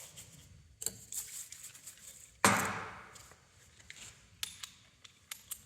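Hammer striking a centre punch on steel plate: a light tap, then one heavy blow that rings on for about a second, followed by a few small metallic clicks.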